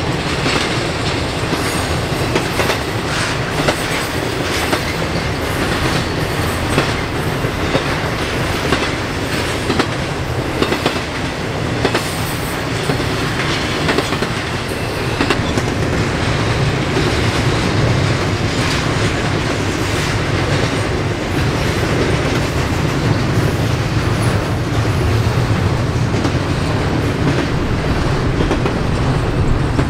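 Double-stack intermodal freight train's loaded well cars rolling past steadily, a continuous low rumble of wheels on rail with many small clicks and clacks throughout.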